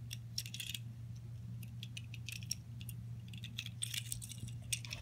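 Small toy train engine being handled and turned over in the fingers: light, scattered clicks and rattles of its body and wheels, over a steady low background hum.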